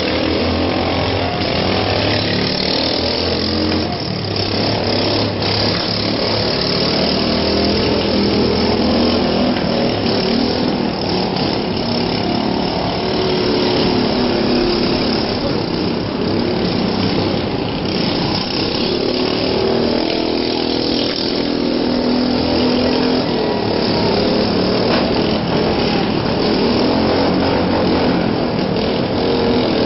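Riding lawn mower engines running and revving, their pitch rising and falling over a steady noisy din.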